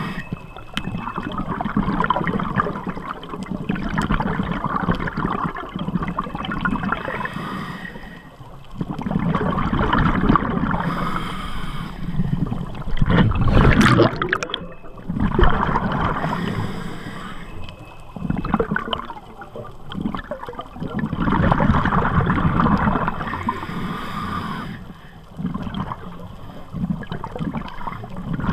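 Scuba regulator exhalations heard underwater: a bubbling rush that swells every few seconds, loudest about 14 seconds in.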